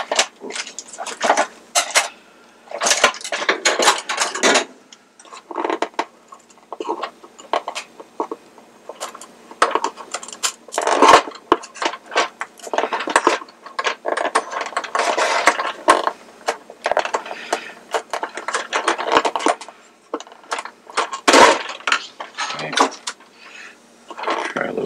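A small pointed pry tool scraping and clicking against a glued-on rubber cap at the centre of a merry-go-round's top, in many short, irregular bursts with brief pauses, as the tool works under the cap's edge to pry it loose.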